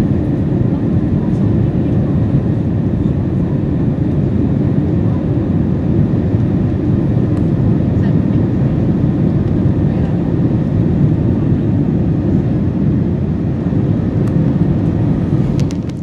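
Jet airliner cabin noise by the wing: engines and rushing air running steadily as a deep, even rumble during the climb.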